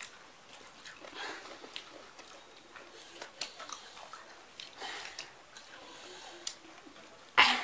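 Mouths chewing and biting into singju, a salad of shredded cabbage and fried fritters eaten by hand, with small wet clicks and smacks. Near the end there is one short, loud rush of noise.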